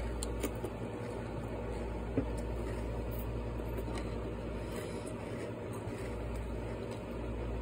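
Steady low background hum, with a few faint short clicks.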